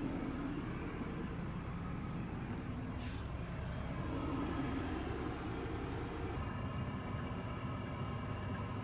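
Steady rumble of a coach bus's engine and tyres heard inside the passenger cabin.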